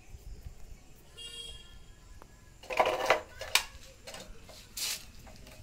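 Clicks and knocks of hand tools at work on an electricity meter board, with a short voice-like call about three seconds in, which is the loudest sound, and a brief pitched call about a second in.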